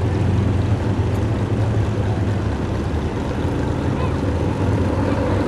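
Pro stock mini pulling truck's engine idling, a steady low drone.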